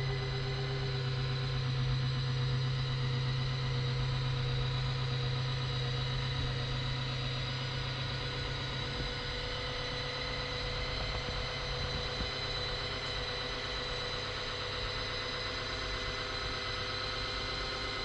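Ultraflex electro-mechanical hatch lifter (electric ram) running steadily with a continuous motor hum and whine as it slowly raises the boat's engine hatch. The low hum fades about halfway through.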